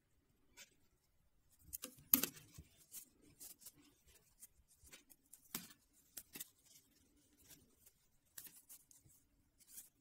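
Wooden-tipped circular knitting needles clicking and scraping together as knit stitches are worked. The taps are light and irregular, and the loudest comes about two seconds in.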